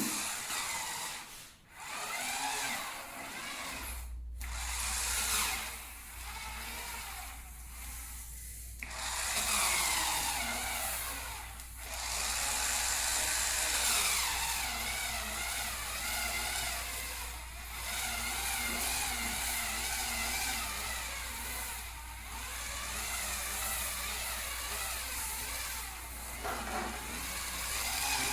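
Hurricane Spin Scrubber's motor whirring as its spinning brush scrubs a surface, the pitch wavering as the brush is pressed and moved, with a few brief breaks.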